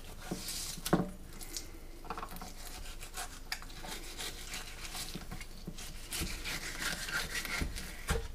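Knife cutting and scraping through a white perch on a cutting board: irregular rubbing, scraping strokes and small clicks, with a sharp knock about a second in.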